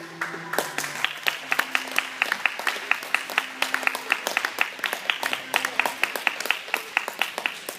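A small audience clapping by hand, with separate claps heard and some loud and close, starting about half a second in as the skating music stops.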